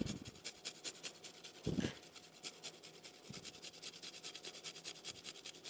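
A garlic clove grated on a small flat handheld metal grater: a fast run of faint rasping strokes, several a second. A single low thump comes a little under two seconds in.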